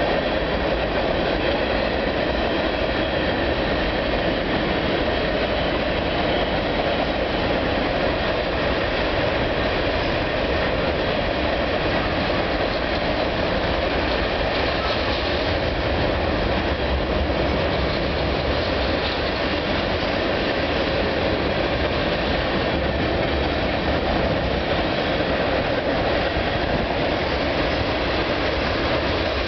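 Freight cars of a long CN mixed freight train (covered hoppers, a lumber flatcar, boxcars) rolling across a railway bridge overhead: a steady, unbroken rumble and rattle of steel wheels on rail.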